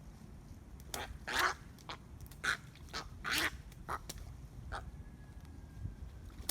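A bird calling in a rapid series of short, separate calls, about eight in four seconds, the last one standing apart near the end.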